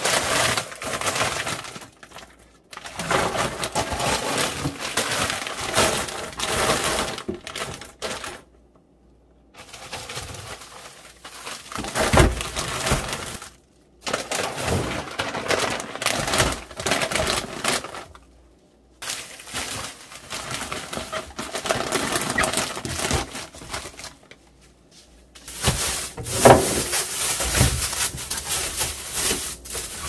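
Plastic bags and food packaging rustling and crinkling as they are handled, in stretches broken by short pauses, with a few knocks from packages set down.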